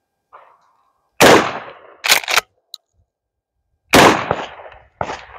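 Two blasts from a Mossberg Maverick 88 12-gauge pump shotgun firing 2¾-inch buckshot, about two and a half seconds apart, each trailing off in a long echo. Short sharp clacks follow the first shot, typical of the pump slide being racked.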